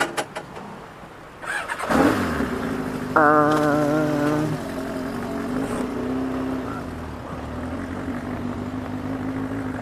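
Yamaha XJ600 motorcycle's air-cooled inline-four engine starting about two seconds in, then running steadily.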